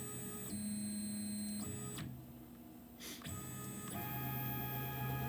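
CNC mill axis drive motors whining as the axes are jogged. The whine holds steady tones that jump to new pitches every second or so as the jog speed changes, with a quieter break near the middle.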